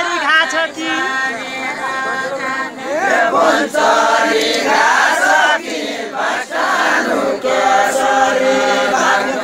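A group of voices singing a Deuda folk song together, unaccompanied, in long held notes.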